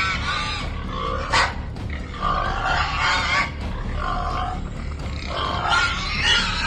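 Feral hogs grunting and squealing, several irregular calls overlapping, with a short sharp sound about a second and a half in.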